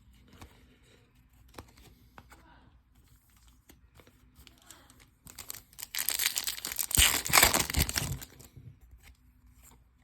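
A foil trading-card pack wrapper being torn open and crinkled. It is a loud tearing that starts about halfway through and lasts about three seconds, after a few seconds of faint handling of cards.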